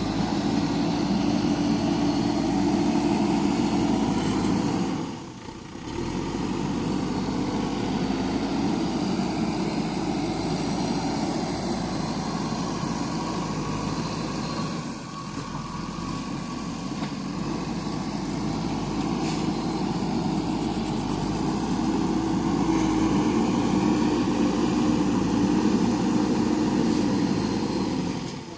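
Diesel engine of a JCB backhoe loader running steadily, with two brief drops in level, about five and fifteen seconds in.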